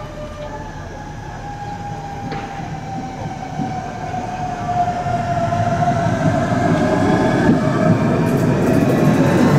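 Appenzeller Bahnen electric railcar pulling into the station: a whine from its drive falls slowly in pitch as it slows, while the running noise of the train grows steadily louder as it comes past close by.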